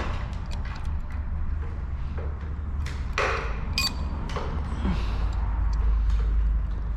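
Small metallic clicks, scrapes and a short ringing ping as a dropped timing chain is fished out from inside a motorcycle engine, over a steady low hum.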